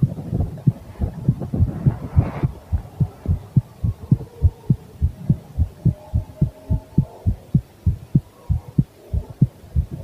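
A person's heartbeat picked up by a microphone against the chest, beating steadily with dull low thumps at about three a second. There is a brief rustle about two seconds in.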